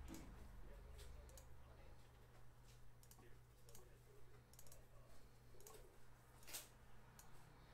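Near silence: room tone with a steady low hum and a handful of faint, scattered clicks, the loudest near the end.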